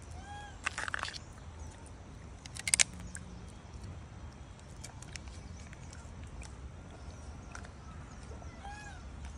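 Thin plastic crackling as a rhesus macaque handles a small plastic cup: a short burst about a second in and a louder crackle near three seconds, over a low outdoor rumble. A short chirping call is heard twice, near the start and near the end.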